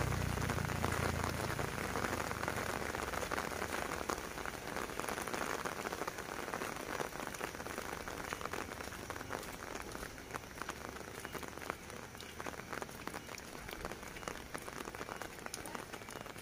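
Steady rain falling, with many small drop ticks throughout. A low rumble fades out over the first two seconds.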